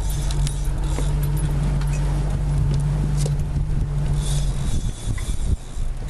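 A small boat's motor running steadily with a low hum, dropping away about five seconds in.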